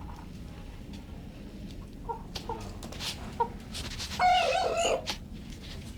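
Chickens clucking: a few short, soft clucks, then one loud, wavering call lasting under a second, about four seconds in. A few faint clicks and scuffs come in between.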